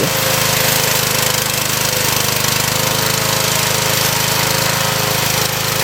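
Remote-controlled lawn mower running steadily under load, its blades cutting through thick, dense grass, with a fast, even pulse to the engine sound.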